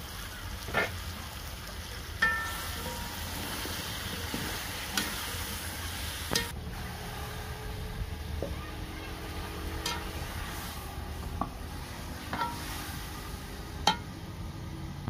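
Chopped potatoes and carrots sizzling in an aluminium pot over a wood fire, a steady hiss, with a few sharp metal clinks now and then, one ringing briefly about two seconds in.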